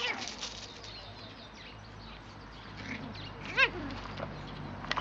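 Griffon puppies play-fighting, giving short high yelps; the loudest is a single brief yelp, rising then falling in pitch, about three and a half seconds in.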